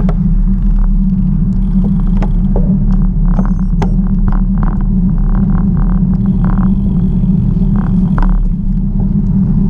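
Steady loud low rumble of riding noise, wind and road, on a camera carried along on a bicycle ride, with scattered clicks and short rattles.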